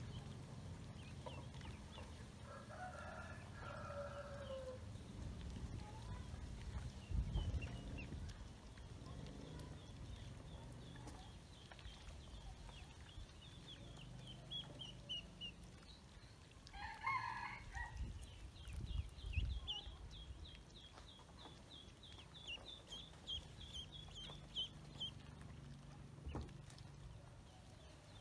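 A rooster crows twice, a few seconds in and again around the middle, over strings of rapid high peeping from ducklings and a chick.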